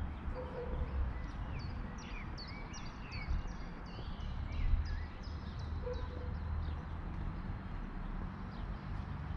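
A songbird singing a quick series of short, falling high chirps, with a steady low outdoor rumble underneath.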